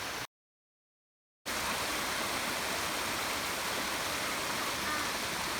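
Steady rushing of a mountain waterfall and stream. It drops out into dead silence about a quarter second in for just over a second, then comes back unchanged.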